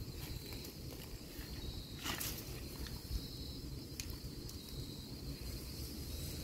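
Steady high-pitched insect chirring, over low rumbling wind and handling noise on the microphone, with a brief swish about two seconds in.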